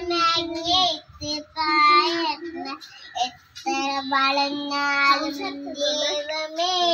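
A young girl singing a Malayalam song in phrases of long held notes, with short breaks between them.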